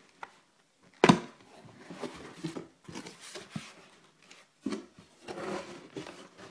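Cardboard box and its contents being handled as a mask and costume are pulled out. A sharp knock comes about a second in, then irregular rustling and scraping with small clicks.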